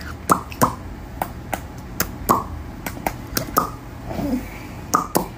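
A run of quick, irregular lip-smacking kisses, sharp smacks, some with a short falling squeak, given at close range.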